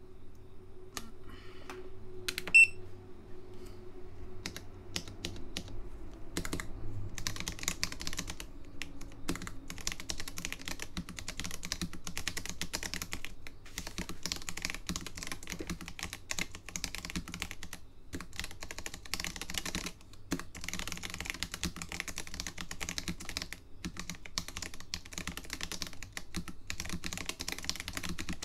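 Typing on a home-made keyboard with new-old-stock SMK second-generation orange linear switches and Skyloong silicone keycaps, on a bare PCB and plate with no case. Scattered clicks and one sharp click about two and a half seconds in give way, around seven seconds in, to a steady, fast run of key presses.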